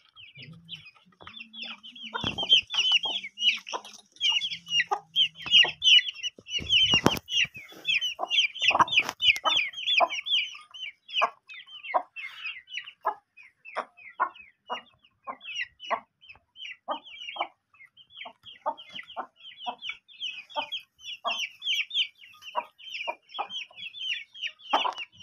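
Aseel chickens: young chicks peeping rapidly and without pause, many high-pitched peeps a second, with lower clucks from the adult birds mixed in.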